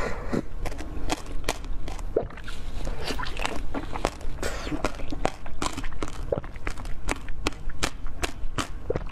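Close-miked chewing of a mouthful of passion fruit jelly, with irregular sharp crunching clicks, about two to four a second, from the seeds and firm jelly between the teeth.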